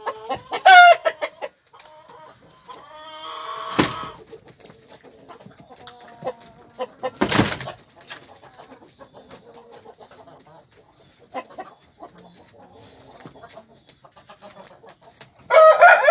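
Herati chickens clucking and calling, with a sharp pitched call just after the start, another around a quarter of the way in, and a louder one near the end. A brief noisy burst comes near the middle.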